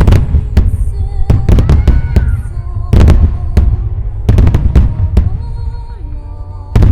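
Wide starmine fireworks barrage: aerial shells bursting in quick clusters of loud, sharp cracks, with booming rumble and echo rolling on between them. Fresh clusters come about a second in, around three seconds in, at about four and a half seconds, and again near the end.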